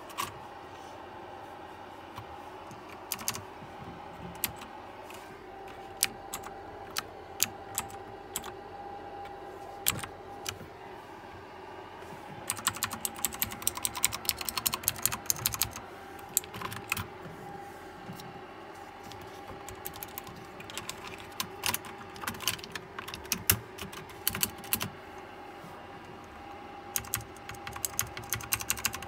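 Keys of a KLIM Domination keyboard with blue switches being pressed: scattered single clicks for the first dozen seconds, then fast runs of clicky typing in several bursts. A faint steady hum runs underneath.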